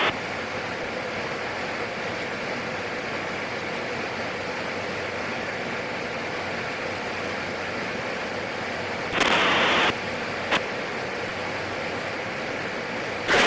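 Steady in-flight cabin noise of a PAC 750XL's turboprop engine heard through the aircraft intercom: an even hiss with a faint steady hum. About nine seconds in, the radio opens for under a second with a burst of static and no voice, and a single click follows shortly after.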